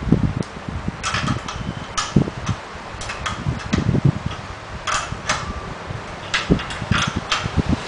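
Irregular light clicks and taps of headlight parts, screws and nuts being handled during assembly, over low bumps of handling.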